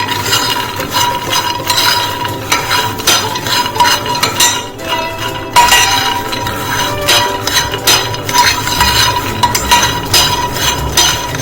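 Microwave-roasted peanuts being stirred with coconut oil and salt in a glass bowl: a steady run of quick, irregular clinks and rattles of spoon on glass and nuts knocking together.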